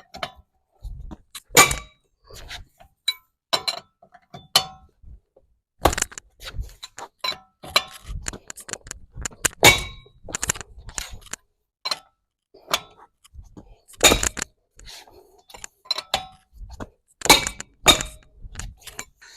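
Irregular metal clanks and clinks, some ringing briefly, from a car jack and wheel-nut wrench being handled and set in place under the car.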